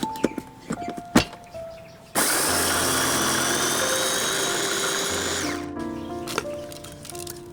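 A small electric motor runs for about three seconds with a slowly rising high whine, then cuts off suddenly. Background music plays throughout.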